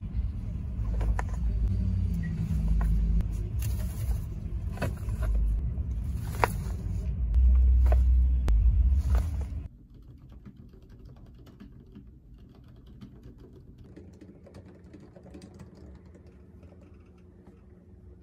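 A loud, uneven low rumble with a few sharp clicks, which cuts off suddenly about ten seconds in. It is followed by faint, soft typing on a laptop keyboard under a silicone keyboard cover.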